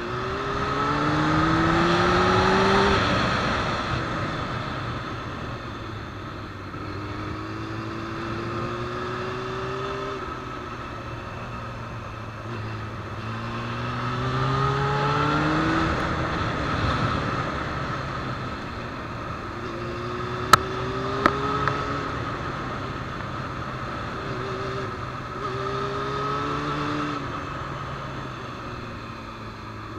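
Sport motorcycle engine pulling hard and easing off again and again through the bends, its pitch rising with each pull, over a steady rush of wind noise. Three sharp clicks come about two-thirds of the way through.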